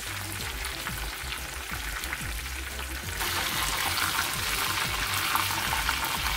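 Breaded chicken cordon bleu rolls deep-frying in hot oil in a small pan: a steady sizzle that grows louder about three seconds in, as tongs turn the pieces.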